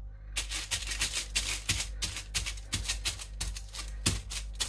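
Quick, rhythmic rattling scrapes, about four or five a second, made while working thick wet plaster of Paris out of a flexible mixing cup into a silicone mould.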